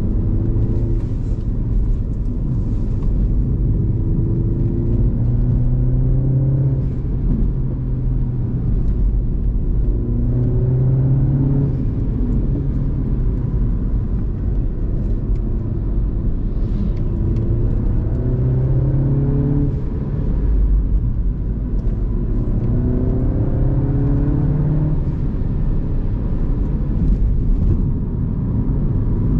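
Mini F56 hatchback's turbocharged four-cylinder engine under repeated acceleration while driving, its pitch climbing over a few seconds and then dropping away about five times, over a steady low rumble of road noise.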